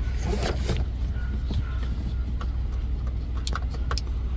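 Steady low hum of the 2008 Toyota Kluger running with its front air conditioning on. Over it come rustling and several sharp clicks as the rear blower fan's wiring connector is handled and plugged in. The rear fan stays silent, because the rear AC switch is still off.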